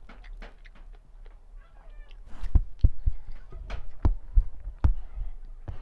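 Close-miked eating sounds: wet chewing and lip-smacking, with fingers mixing rice on a steel plate. The sharp smacking clicks come thick and loud from about halfway through.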